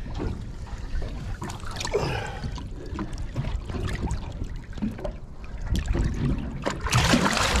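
Water sloshing and trickling against the side of a boat while a large snapper is held in the sea. Near the end comes a louder splash as the fish is let go.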